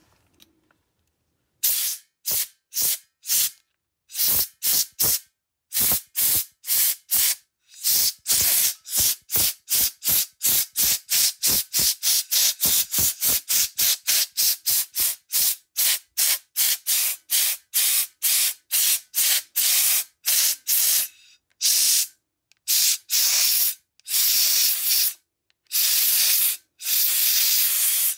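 Compressed air from an air compressor hose blown at a wet knife in many short hissing blasts to dry it. The puffs come about two or three a second through the middle, with a few longer blasts near the end.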